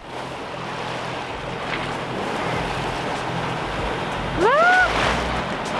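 Wind and water rushing past a sailboat motoring along, with the boat's engine running as a steady low drone beneath. About four seconds in, a short high cry rises and falls in pitch.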